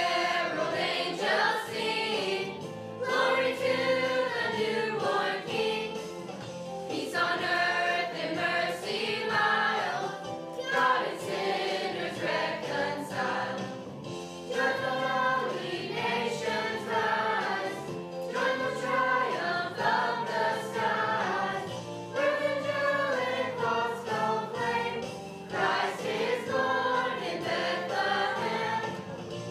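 A youth choir singing a song together in sung phrases with short breaks between them.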